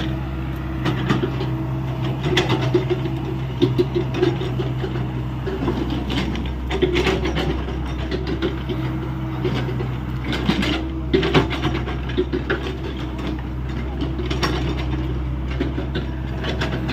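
Hyundai 85A excavator's diesel engine running steadily under working load, with a wavering hydraulic whine and repeated short clanks and scrapes as the machine works earth.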